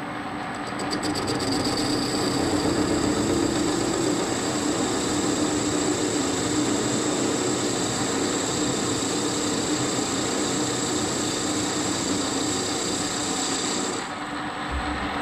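Warco 280 metal lathe running while taking a facing cut across a wheel rim casting: steady motor and gear hum with cutting noise, getting louder about a second in as the cut bites and dropping off sharply near the end.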